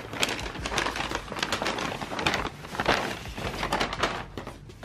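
Brown paper shopping bag rustling and crinkling as hands rummage inside it and shift it, a dense run of irregular crackles.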